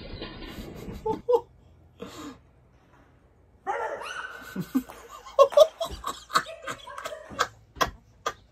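A man laughing hard in a long string of short bursts, starting a little before halfway through.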